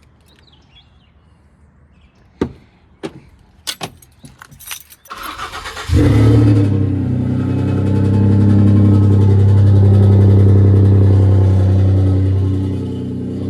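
A few sharp clicks and knocks, then a vehicle engine cranks for about a second and starts. It runs loud and steady from then on.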